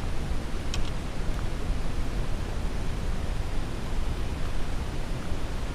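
Wind buffeting the camera's microphone: a continuous low rushing that rises and falls. A faint click or two come about a second in, as a crankbait is worked free of a bass's mouth.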